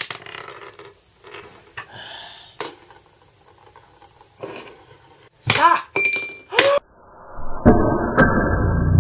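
Light clinks and taps of metal spoons on a wooden counter as a spoon-seesaw catapult is set up, with a short glassy ring about six seconds in. Two sharp clicks near the end as acoustic guitar music starts.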